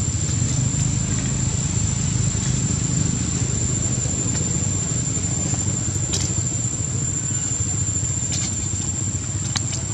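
Steady low rumble with a constant high-pitched whine over it and a few faint clicks in the second half.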